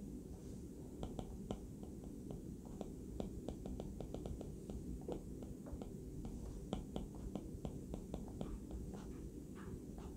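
Stylus tip tapping and clicking on a tablet's glass screen during handwriting: small irregular clicks, several a second, over a low steady background noise.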